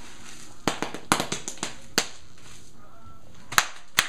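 Bubble wrap popping as a toddler presses and steps on it: sharp, irregular pops, a cluster in the first two seconds and two more near the end.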